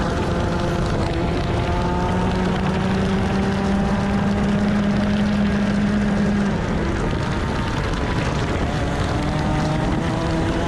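125cc TaG two-stroke kart engine at high revs on board, its pitch climbing slowly under full throttle, dropping sharply about two-thirds of the way through as the driver lifts for a corner, then climbing again near the end. Wind rush on the microphone underneath.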